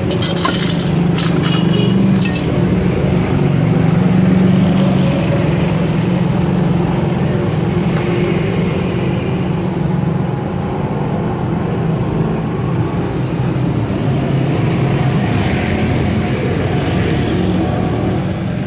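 Steady engine hum of street traffic, motorbikes and trucks running close by. In the first couple of seconds a few sharp metallic clinks ring out from a hanging chain scale's pans and chains.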